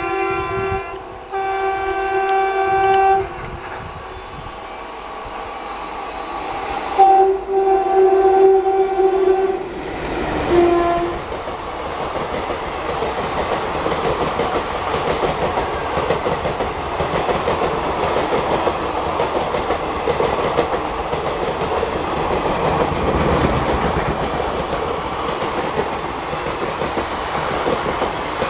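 WAP-4 electric locomotive sounding its horn in several long blasts over the first ten seconds or so, with a short final toot. The express train's coaches then rumble and clatter past close by, steadily, for the rest of the time.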